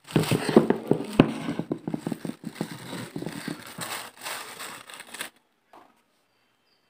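Plastic bag rustling and crinkling while small unfired clay cups are handled and set down on a wooden table, with many small clicks and taps and one sharper knock about a second in. The handling stops abruptly a little after five seconds.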